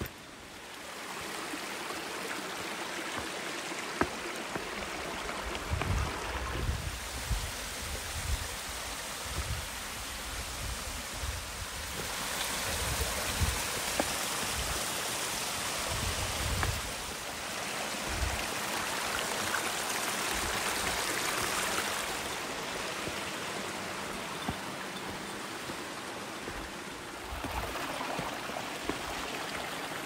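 Mountain stream running over rocks, a steady rush that grows louder for about ten seconds in the middle and then eases. Irregular low thumps come and go over it, mostly in the first half and again near the end.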